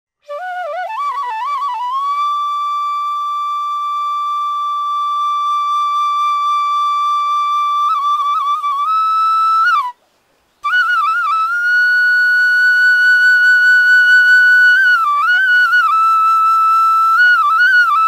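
Solo flute music: a slow melody of long held notes, decorated with quick turns and slides between them. It breaks off for a moment about ten seconds in, then carries on a little higher.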